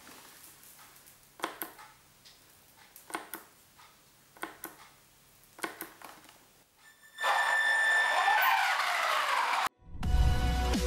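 Pairs of sharp clicks, four times about a second and a half apart, typical of a radio transmitter's toggle switch being flicked to work a receiver-driven LED multiswitch. Then a loud whooshing swell with sweeping tones for about three seconds that cuts off suddenly, and electronic music with a heavy bass starting just before the end.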